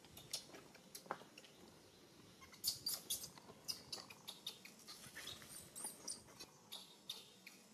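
A newborn macaque gives a run of short, high-pitched squeaks. They come thick and fast from about two and a half seconds in.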